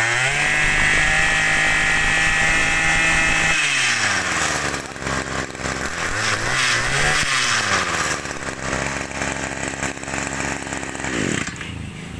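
Maruyama 32 cc two-stroke brush cutter engine revved on its squeeze throttle. It climbs to full speed and holds there for about three seconds, drops back to idle, blips up briefly about seven seconds in, then settles to idle again.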